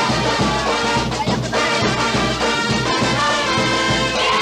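Brass band music with trumpets and trombones over a steady drum beat.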